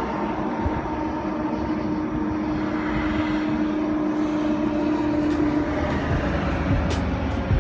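Steady road and wind noise heard from inside a moving vehicle, with a steady drone that fades out about six seconds in.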